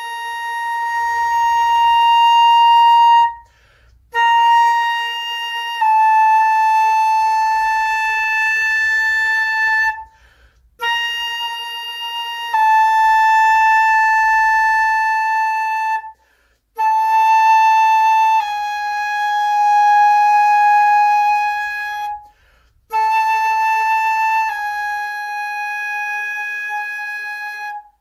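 Concert flute playing slow chromatic long tones in the high register, starting near B and stepping down by half steps. Each held note is slurred into the one a semitone below, and the playing stops briefly four times, about every six seconds.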